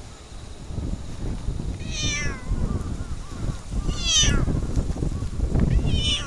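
Orange-and-white tabby cat meowing three times, about two seconds apart, each meow falling in pitch.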